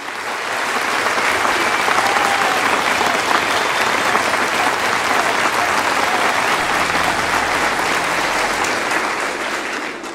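Audience applauding. It swells up over the first second or so, holds steady, and eases off slightly near the end.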